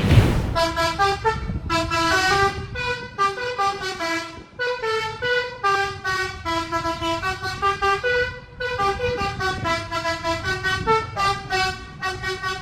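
Bus telolet horn, a multi-tone musical air horn, playing a quick melody of short stepped notes that change pitch several times a second, with a brief break about eight seconds in. The bus's running and road noise rumble underneath.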